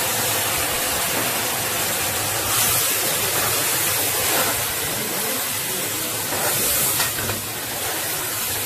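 Steady hiss of water sizzling and steaming in a pan of hot oil, onions and masala just after it is poured in, with a ladle stirring through it.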